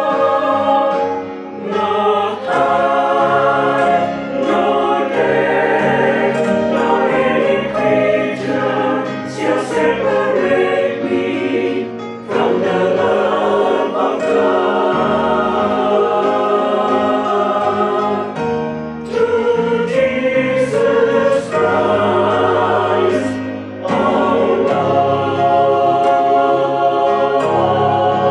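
Mixed choir of men's and women's voices singing in harmony, holding long phrases with brief breaths between them.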